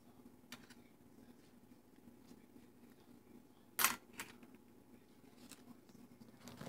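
Handling noise: a few light clicks and one brief, louder crackle about four seconds in, with a smaller one just after, over a low steady hum.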